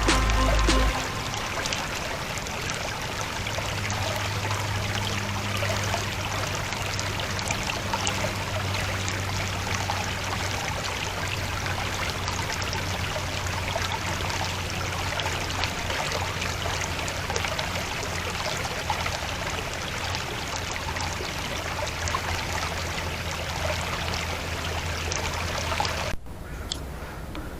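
A steady rushing like running water, which cuts off abruptly near the end.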